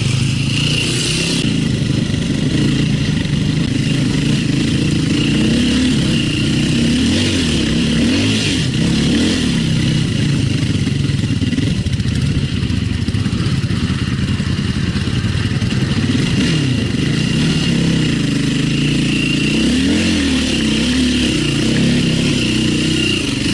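Enduro motorcycle engine running hard, its pitch rising and falling again and again as the throttle is opened and closed.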